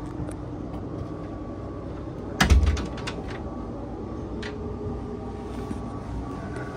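Steady low hum of onboard machinery, with a single heavy thump and a quick run of clicks about two and a half seconds in.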